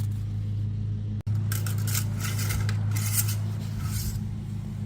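Brief scraping and clinking handling noises, several short bursts in the second half, as engine oil is topped up and checked, over a steady low hum. The hum drops out for an instant about a second in.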